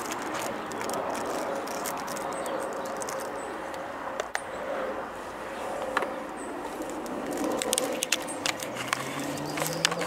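Steady outdoor background noise with a faint hum, likely distant traffic, broken by a few light clicks; a low engine-like drone comes in near the end.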